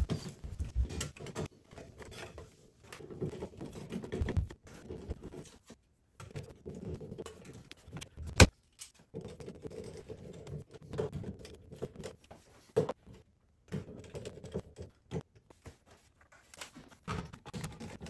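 Light metallic rattling, clicks and rustling as small parts are handled while a fitting is put back together, with one sharp click just after the middle and another a few seconds later.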